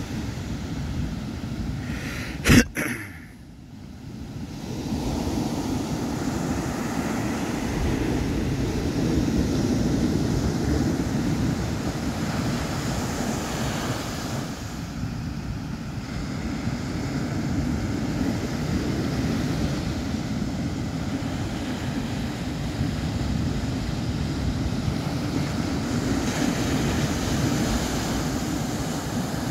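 Ocean surf breaking and washing up a sandy beach, a steady low rumbling wash. A single sharp click about two and a half seconds in is the loudest moment, followed by a brief dip before the surf sound comes back.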